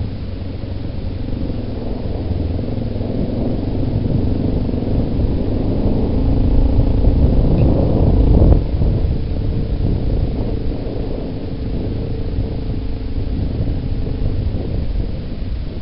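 Yamaha Big Bear ATV engine running as the quad rides along a dirt trail. The engine builds gradually to its loudest about eight and a half seconds in, then drops back suddenly as the throttle eases, and keeps running at a lower level.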